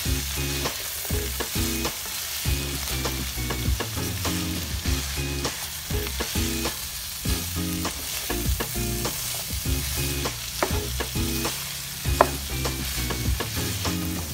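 Stir-frying: a black plastic spatula scraping and tapping through a nonstick pan of sizzling julienned carrots, bell peppers and bacon, over a steady frying hiss. Short scrapes and taps come throughout, with one louder knock of the spatula against the pan near the end.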